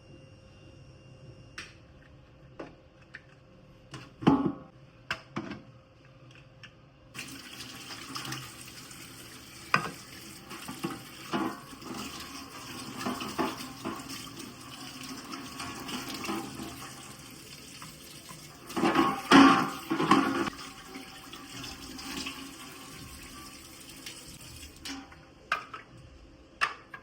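Kitchen tap running into a sink, turned on about seven seconds in and off near the end, with knocks and clatter before and during the flow, loudest about two-thirds of the way through.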